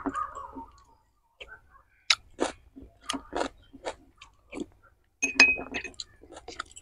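Close-up mouth sounds of someone eating chicken biryani: wet chewing and lip smacks in short, irregular bursts. About five seconds in there is a short clink, as a spoon is set down in a glass bowl.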